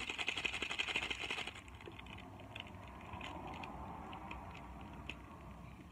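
Two small instant-noodle seasoning packets shaken hard for about a second and a half, the powder inside rattling fast. This is followed by quieter crinkling and scattered ticks of the foil packet as it is torn open.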